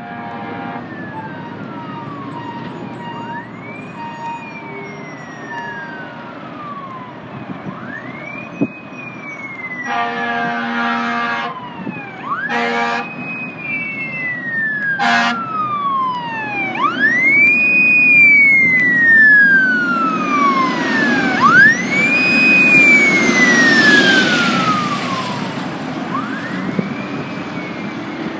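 Tiller ladder fire truck's siren on a slow wail, rising and falling about every four to five seconds, a weak, weird-sounding siren. Three short horn blasts come between about ten and fifteen seconds in. The siren and the truck's engine rumble grow loudest as it passes, then fade a little.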